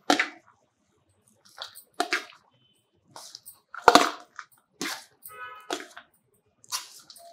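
Steel spoon scraping and knocking against a stainless-steel plate while cooked rice is mixed by spoon and hand: about six separate scrapes, the loudest about four seconds in, with a brief metallic ring a little after five seconds.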